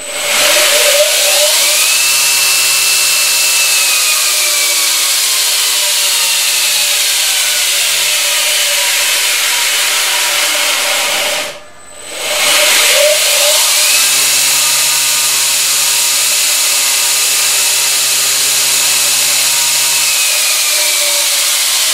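A 2x72 belt grinder, driven by a three-phase motor on a variable-frequency drive, runs up to speed with a rising whine over the hiss of the abrasive belt and runs steadily. About eleven seconds in it winds down to a brief stop, then ramps up again, reversed, and runs on.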